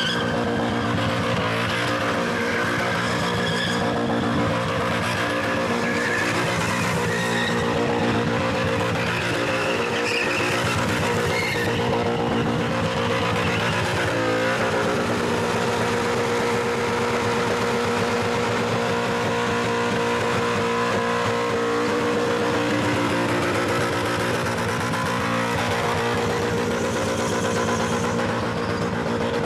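Holden Commodore's LS2 V8 held at high revs through a burnout, the rear tyres spinning and squealing on the pavement. Steady and loud, with a brief dip and rise in pitch about halfway through.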